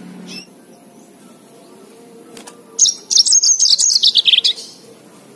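Yellow-fronted canary singing a fast burst of high twittering notes for about two seconds, falling in pitch toward the end.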